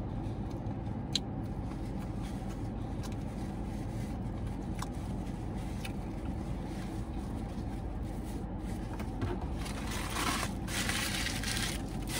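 Steady low hum inside a parked car's cabin, with a few faint clicks. From about ten seconds in, paper rustling as a takeout food bag is rummaged through.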